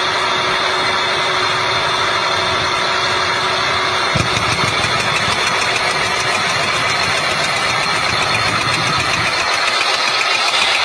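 Small portable drill rig boring horizontally into rock: its motor and turning drill rod run with a loud, steady mechanical clatter. There is a single thump about four seconds in.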